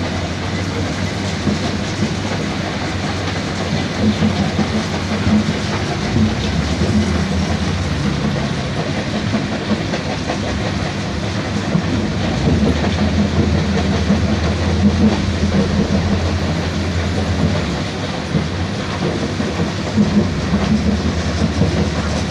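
Dump truck running, with a steady low engine drone and continuous clattering over it.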